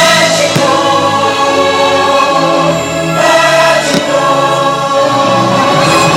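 Fireworks show soundtrack: orchestral music with a choir singing held chords.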